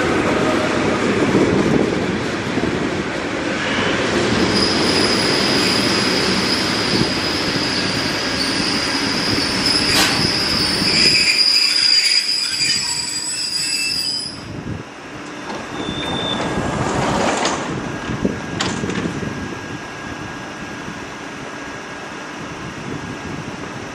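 ЭП2Д electric multiple unit rolling in and braking to a stop, with a steady high brake squeal from about four seconds in that cuts off as the train halts. A few short sounds follow as the doors open, then the standing train gives a steady hum.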